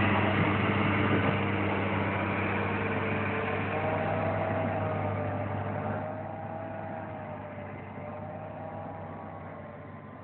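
Mechanical grape harvester running steadily: an engine hum with a wavering higher whine above it, growing steadily fainter.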